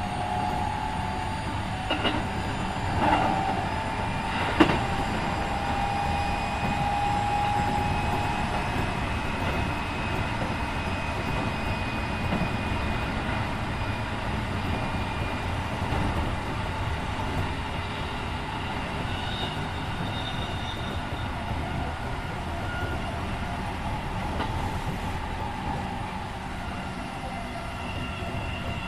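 Keikyu 1500-series electric train car, refurbished with Mitsubishi IGBT-VVVF equipment, running on the rail: a steady rumble of wheels on track. A few sharp clicks come in the first five seconds, and a thin whine rises slightly over the first eight seconds.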